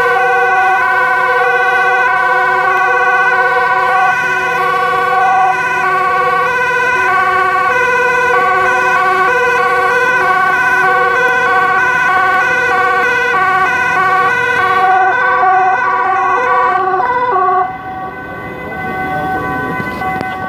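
Two-tone sirens of several fire service vehicles sounding together, their alternating high and low notes overlapping out of step. The sirens cut off suddenly about three-quarters of the way through, leaving a lower, steady noise.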